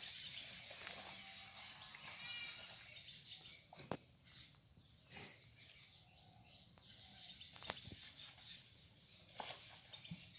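Small birds chirping over quiet rural background noise: short, high, falling chirps repeated every second or so, often in pairs, with a few sharp clicks.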